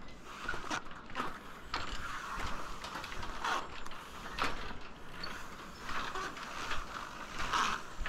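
Footsteps on the wooden plank deck of a wire-mesh suspension bridge, about one a second, with creaks and rattles from the bridge's fittings as it takes the weight.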